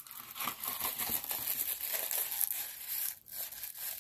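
Plastic packaging of a diamond-painting kit crinkling as it is handled. The crinkling runs on with a short pause a little after three seconds in.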